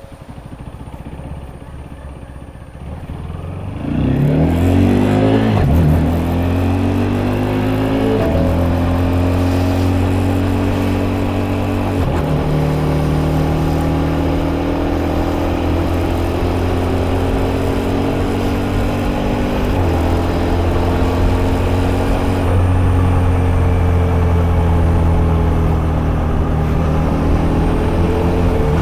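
KTM Duke 250's single-cylinder four-stroke engine accelerating hard: quiet for the first few seconds, then about four seconds in the note climbs steeply, dropping back at three quick upshifts within the next eight seconds. After that it runs at a steady pitch in a higher gear, rising slowly again near the end.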